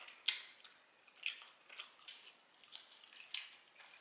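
Close-up mouth eating sounds: chewing a mouthful of spaghetti and ground beef, with a handful of short, wet lip-smack clicks spaced irregularly.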